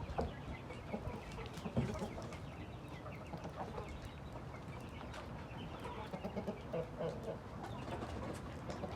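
Chickens clucking, many short, irregular calls overlapping.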